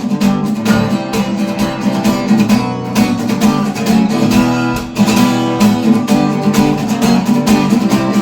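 Acoustic guitar strummed steadily in chords with a quick, even rhythm: an instrumental break between sung verses.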